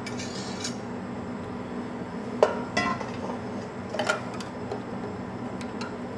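Stainless steel mixing bowl and wire whisk clinking and knocking against a plastic food container while marinade is worked over chicken thighs: a few sharp knocks, the loudest about two and a half seconds in.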